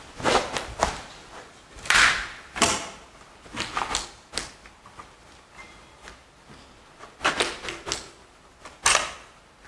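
A string of irregular short knocks, clicks and scuffing clatters, in small clusters about a second or two apart, with the loudest at about two seconds in and near the end.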